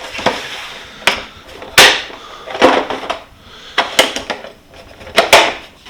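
Hand tools knocking and clattering against each other and the metal of a toolbox drawer as they are handled: about five sharp knocks, the loudest about two seconds in and again near the end.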